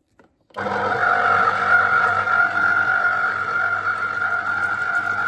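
Electric juicer motor whirring as orange and lemon halves are juiced. It switches on about half a second in and then runs steadily with a low hum and a constant whine.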